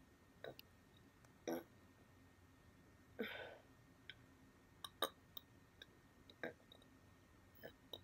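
A person hiccuping with a hand pinched over the nose: several short, sharp hiccups at irregular intervals of about a second, with a longer, breathier one about three seconds in.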